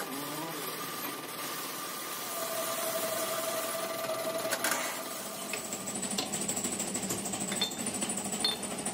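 Steady hum of running workshop machinery with a few sharp metal-on-metal clinks. About two-thirds of the way through, the hum changes to a higher, thinner whine with light rattling.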